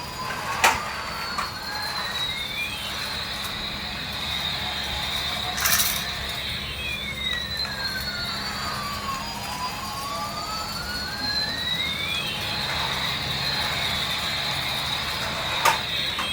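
Electronic sound effect from a battery-powered toy: siren-like tones slowly gliding down and back up in cycles of about six seconds over a steady high tone, with a few sharp clicks.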